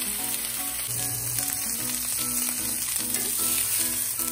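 Ribeye steak sizzling steadily as it sears in a hot, oiled cast-iron skillet, under soft background music.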